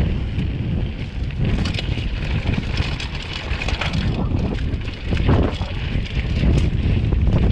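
Wind buffeting the microphone over the rattle and tyre noise of a mountain bike riding fast downhill on a rough dirt trail, with many small knocks from the bike as it goes over bumps.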